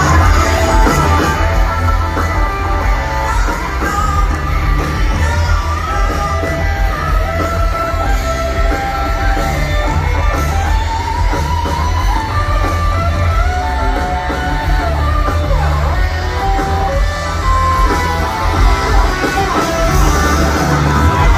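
Live rock band playing through a concert sound system, heard from the audience: electric guitar, drums and bass under a singing voice.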